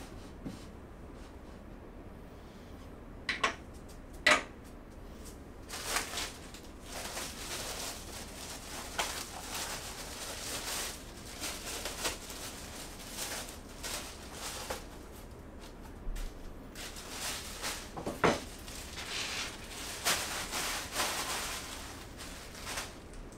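Dresser parts being handled and fitted together during assembly: a few sharp knocks, the loudest about four seconds in and again near the end, amid a long run of scraping, rustling and light clatter.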